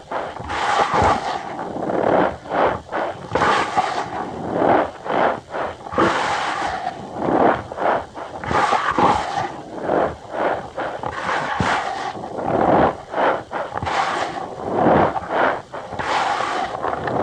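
Cornstarch powder being squeezed and crushed by hand, giving a rapid, irregular series of squeaky crunches, several a second.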